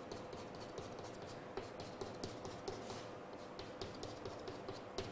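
Chalk on a blackboard: a run of quick, short scratchy strokes and taps as small dashes are drawn, over a faint steady hum.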